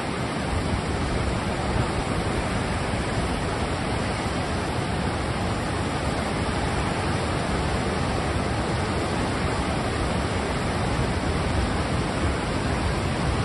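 Water released through a dam's open spillway gates, pouring down the concrete spillway chutes: a steady, unbroken rush of falling water.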